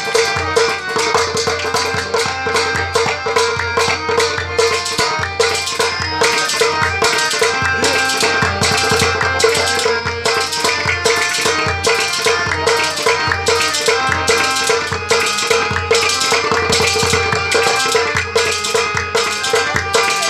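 Instrumental Kashmiri folk music: a harmonium plays a melody over one held note, with a hand drum beating a fast, dense rhythm.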